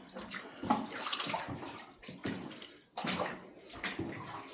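Water splashing and sloshing in short, irregular bursts.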